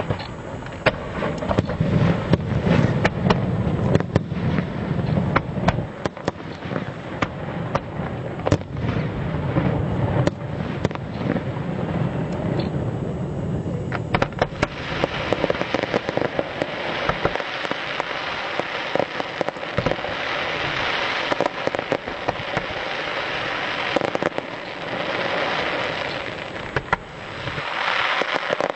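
Fireworks display: rapid bangs of bursting shells over a low rumble, turning about halfway through into dense crackling.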